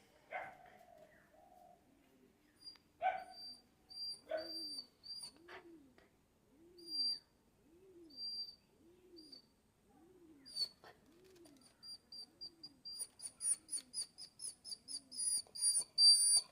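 Dog whining excitedly on seeing a friend: thin, high-pitched squeaky whines and a few short cries, over a soft low moan that repeats a little faster than once a second. Near the end the squeaks come rapidly and get louder.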